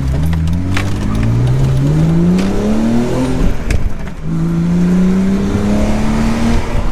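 BMW E46 330ci's straight-six engine accelerating, its pitch climbing steadily, then dropping about three and a half seconds in at an upshift and climbing again before easing off near the end.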